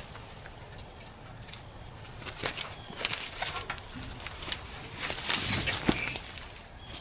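Footsteps and rustling through brush with scattered clicks and knocks, busiest about five to six seconds in, as the harvested doe is moved out.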